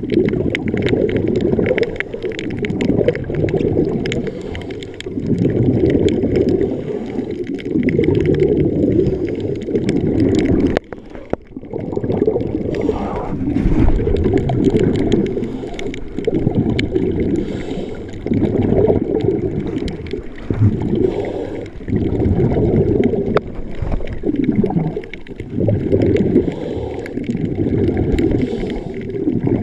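Underwater sound picked up by a submerged camera: muffled water sloshing and gurgling that swells and fades every couple of seconds, with faint crackling clicks throughout and a brief drop-out about eleven seconds in.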